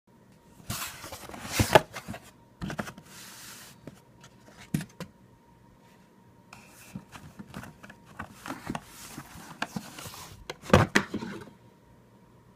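Apple Watch packaging being handled and opened: irregular rustling, scraping and sliding with a few sharp knocks, the loudest about two seconds in and again near the end.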